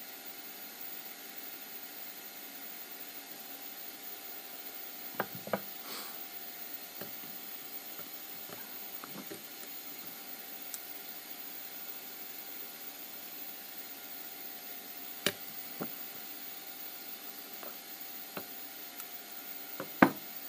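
Scattered light clicks and taps from tweezers and hands handling copper wire at a printer nozzle over a glass bed, the loudest near the end, over a steady faint hiss.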